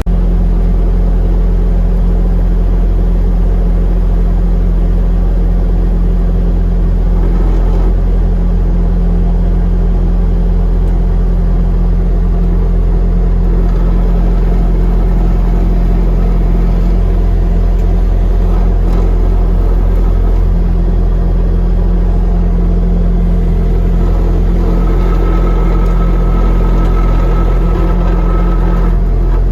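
Skid steer engine running steadily under load with a deep, even hum. A thin high whine joins in for a few seconds near the end.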